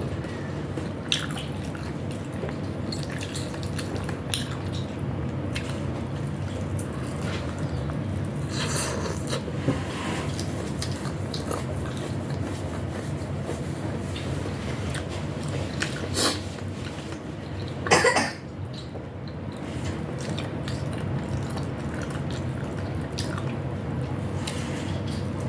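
A steady low background hum with a handful of short, sharp clinks of utensils against dishes while eating.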